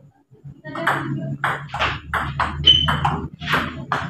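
Table tennis rally: the ping-pong ball clicking off the rubber paddles and bouncing on the table in quick succession, starting about a second in.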